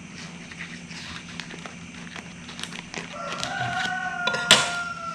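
A plastic bag of sorghum grains crinkling and clicking faintly as it is handled. From about three seconds in, a rooster crows in the background: one long call that falls in pitch at the end, with a sharp click from the bag partway through.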